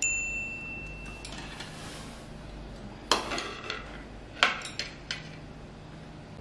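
A spoon strikes a bowl with a clear ringing clink that fades over about a second and a half, followed a few seconds later by four sharp clatters of spoon and bowl.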